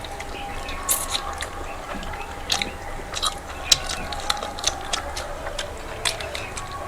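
People chewing and biting a meal of rice and curry, close to the microphone. The chewing comes with irregular mouth clicks and smacks.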